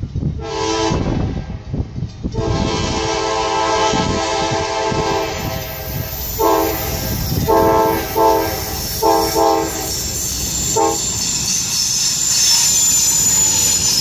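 CSX freight locomotive's multi-chime air horn sounding a horn show: a short blast, a long blast of about three and a half seconds, then a quick string of about six short toots. The train then rumbles up and passes close, with a high wheel squeal.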